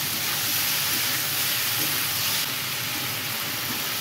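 Diced potato, cauliflower and tomato sizzling in hot oil in a kadhai, a steady frying hiss.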